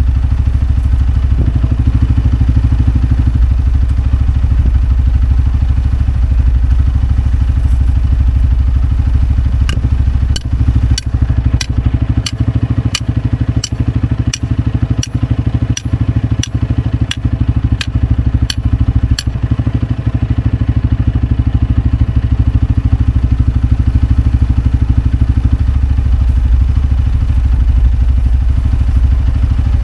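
A steel fence post being banged into place: a run of about seventeen sharp metallic clanks, about two a second, starting about ten seconds in and lasting about ten seconds. Under it runs a steady low engine rumble, like a vehicle left idling.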